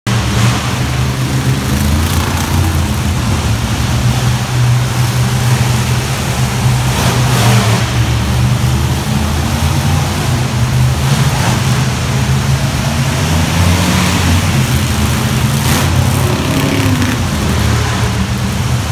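Several monster truck engines running as the trucks drive around a dirt arena, a loud steady low drone echoing in the hall, with brief surges of revving now and then.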